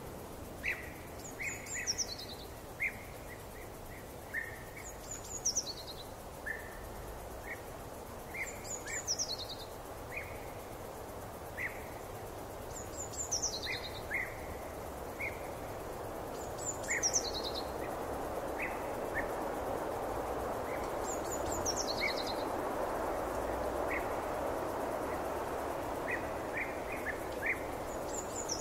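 Forest ambience of birdsong: a bird repeats a short, high, falling phrase about every four seconds, with scattered shorter chirps from other birds, over a steady hiss of background noise that swells a little in the second half.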